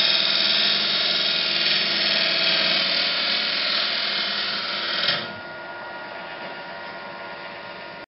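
Jet benchtop wood lathe running while a hand-held tool cuts into the end of the spinning wooden train-whistle blank, deepening its air chamber: a loud, steady, high cutting whine over the lathe's hum. A little over five seconds in the cutting stops suddenly and only the quieter lathe runs on.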